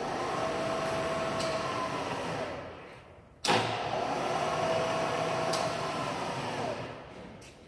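Bridgeport vertical milling machine's spindle motor running with a steady whine, then switched off and winding down, its pitch falling. About three and a half seconds in it starts again suddenly, runs for about three seconds, and winds down once more near the end.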